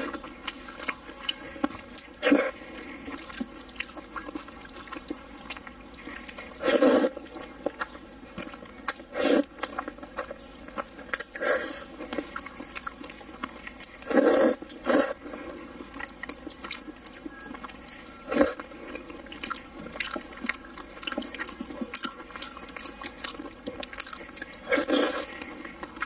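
Mouth sounds of eating hot dry noodles and eel: steady wet chewing and lip smacks, with about seven louder slurps of noodles spread through.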